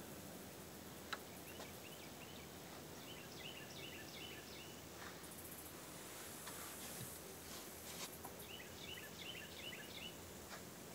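A small bird singing twice, each a quick run of repeated chirping notes, about a second in and again around eight seconds, over a faint steady background hiss.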